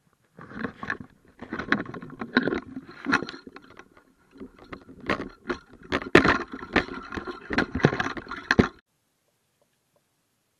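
Handling noise of a camera being lowered into the sea: irregular knocks, scrapes and rustling with water sloshing at the surface, cutting off suddenly near the end.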